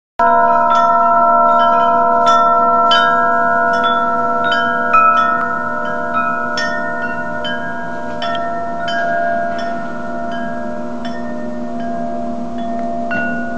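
Large wind chime with long gold-coloured metal tubes, struck by its central wooden striker, ringing in long overlapping tones. There is a deep steady hum under brighter notes, and a fresh strike comes about every half second.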